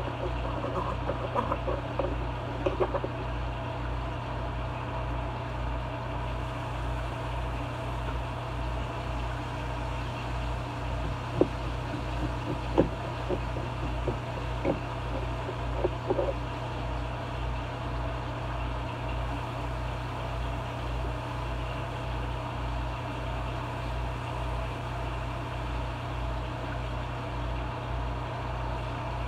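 A steady low machine hum with a slow, regular throb beneath it, and a few light clicks of a knife against a skillet about halfway through.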